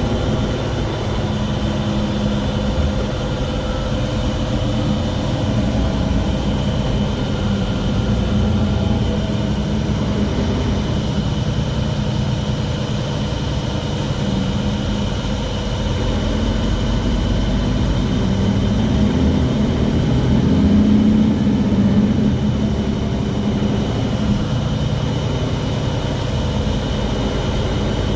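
Mercedes-Benz Citaro G articulated city bus running, a steady low rumble with whining tones held over it, the loud strange noise of this bus. It grows louder for a few seconds past the middle, then settles back.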